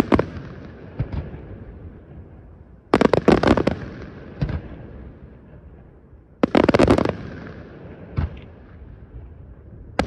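Aerial firework shells bursting in rapid volleys of sharp bangs, each volley under a second long, about every three seconds. A single lone bang falls between the last two volleys, and a low rumble with faint crackle fills the gaps.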